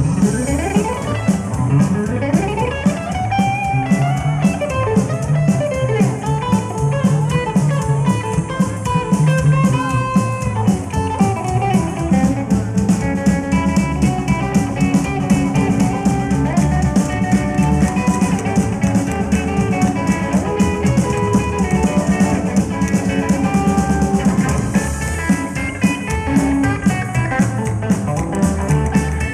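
Rockabilly band playing live without vocals: electric guitar lead over a steady drum-kit beat, the guitar bending and sliding notes in the first few seconds.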